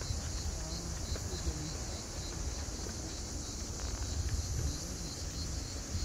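Cicada song: a steady, shrill high buzz with a faint regular pulsing, under a low rumble on the microphone.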